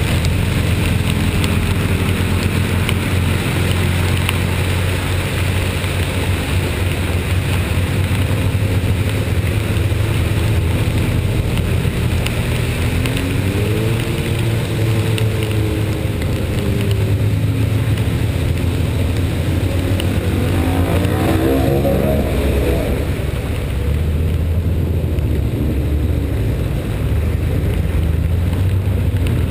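A vehicle engine running with a steady low rumble and a constant hiss of wet road and rain, its pitch rising and falling twice near the middle as it revs.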